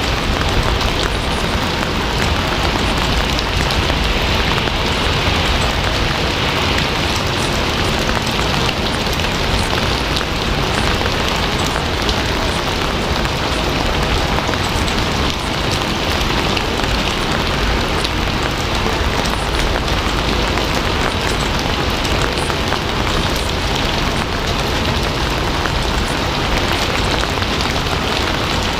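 Steady heavy rain falling on a surface, a dense even hiss with fine patters of drops throughout.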